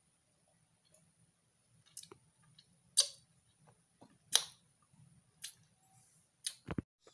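About five sharp clicks or taps, a second or so apart, the loudest about three and four seconds in, followed by a low thump near the end, over a faint high-pitched steady whine.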